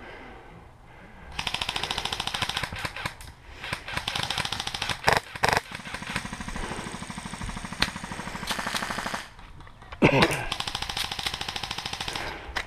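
HPA-powered airsoft RPK, a CYMA RPK with a Wolverine Inferno Gen 2 engine, firing long full-auto bursts: four rapid, evenly paced strings of shots lasting one to three seconds each, with a few single louder sharp cracks between them.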